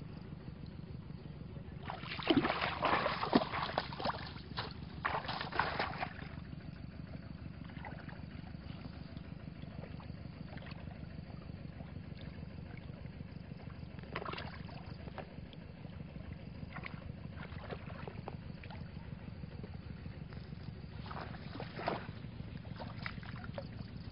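Water splashing in bursts as a bamboo plunge basket is worked in a shallow muddy ditch, loudest twice near the start. Fainter splashes and rustles follow later, over a steady low rumble of wind on the microphone.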